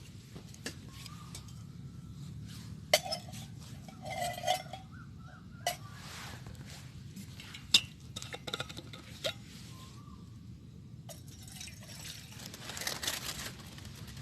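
Camp cookware being handled: several sharp metal clinks and knocks, some ringing briefly, with a stretch of rustling near the end.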